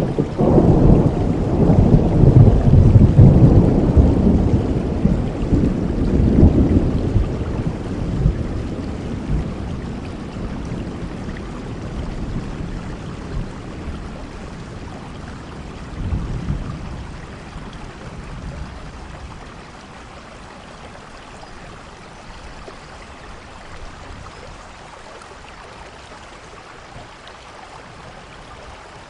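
Thunder rolling over steady rain. A long, loud low rumble fades away over the first several seconds, a smaller rumble comes about sixteen seconds in, and then only the rain is left.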